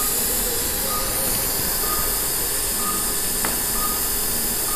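Steady hiss of operating-room equipment, with a short high beep about once a second from a patient monitor's pulse tone and one sharp click about three and a half seconds in.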